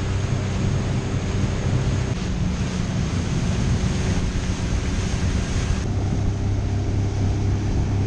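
Motorboat engine running with the boat under way, wind buffeting the microphone and water rushing past the hull. The engine note shifts slightly about two seconds in.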